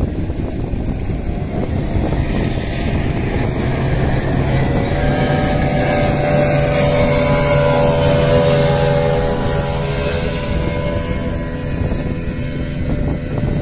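Speedboat engine passing at speed, its hum growing louder about a third of the way in and fading away near the end, over steady wind noise on the microphone.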